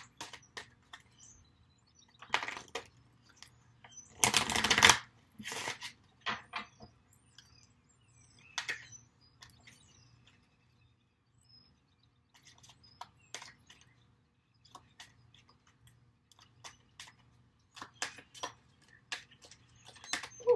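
A deck of affirmation cards being shuffled and handled: scattered light clicks and taps, with a few short shuffling rushes, the loudest about four seconds in.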